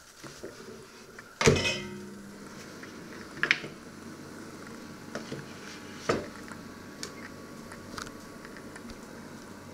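Countertop oven door shut with a loud metallic clunk and a short ring about a second and a half in, followed by a steady low hiss and a few lighter knocks and clicks.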